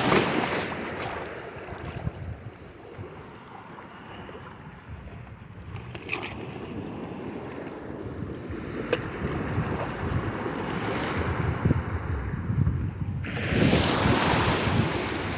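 Wind buffeting the microphone over the wash of surf on a beach, growing louder near the end.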